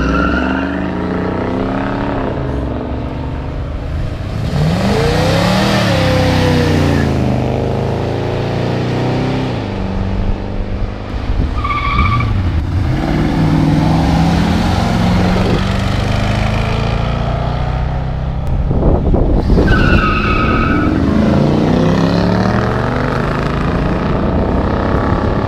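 Pontiac cars' engines revving hard at drag-strip launches, their pitch rising as they accelerate away. Brief tire squeals come at the launches, at the start, about halfway through and again later.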